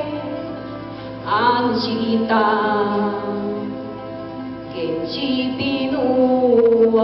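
A woman singing a song in Nahuat (Pipil), in a few phrases of long held notes with vibrato over steady sustained accompaniment.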